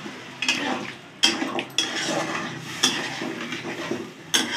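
A spatula stirs bitter gourd curry in water in a metal kadhai, scraping and knocking against the pan several times.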